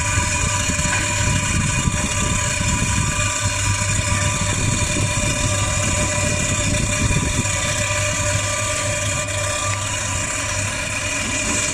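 Commercial freezer's refrigeration unit running, with compressor and condenser fan motor giving a steady hum: a low drone with several steady higher tones and fan hiss over it.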